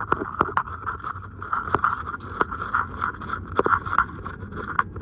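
A screwdriver driving a screw back in to fix a battery plug in place, with irregular clicks and scraping as the screw turns.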